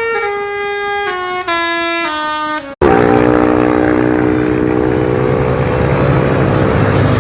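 Basuri telolet multi-tone bus horn playing a slow tune, its notes stepping downward one after another. Just under three seconds in it cuts off abruptly, and a steady, held chord of several tones over a rumble takes over.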